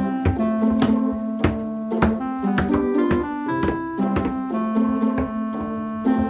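Background music: a tune of short changing notes over a steady beat.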